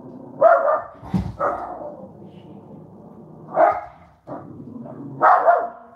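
A dog barking about four times, a second or two apart, with a sharp knock about a second in.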